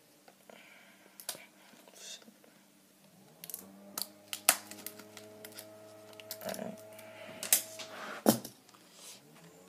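Scissors snipping and clicking as they cut open the seal of a small cardboard knife box, with the box being handled between cuts. There are several sharp separate snaps, the loudest in the second half. A steady low hum sets in about three and a half seconds in.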